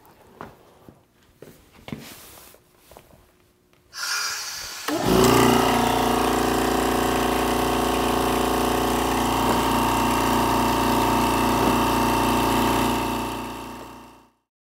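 A few light knocks, then about four seconds in a small electric vacuum pump switches on and runs with a steady, even hum as it draws the air out of a vacuum-veneering bag. It fades out near the end.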